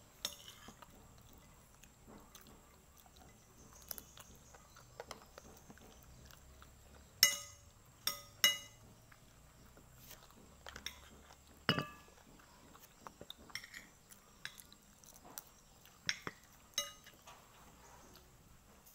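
A metal spoon clinking against a dinner plate, a string of short, sharp ringing taps at irregular intervals, four of them loudest.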